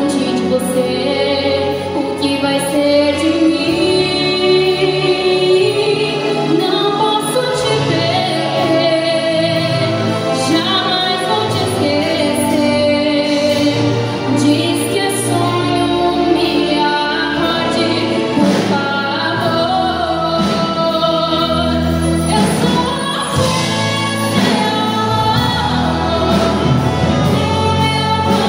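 A woman singing a Portuguese-language sertanejo love song live into a microphone, backed by a live band.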